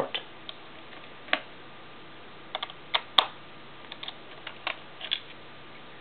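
Scattered light clicks and taps of a small screwdriver working the keyboard screws out of the plastic underside of a Dell Inspiron Mini 10 netbook, irregularly spaced, the sharpest about three seconds in.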